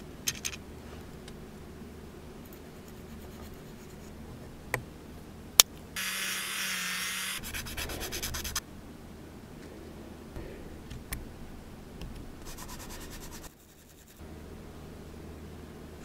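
Needle file rasping a small plastic part in bursts of quick strokes, loudest about six to eight seconds in and again near 13 seconds. Light clicks of small parts and tools being handled come between.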